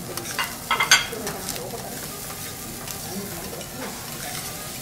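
Food sizzling on a hot teppanyaki griddle while a steel spatula and knife scrape and clink against the plate. A cluster of sharp metal clinks comes about a second in.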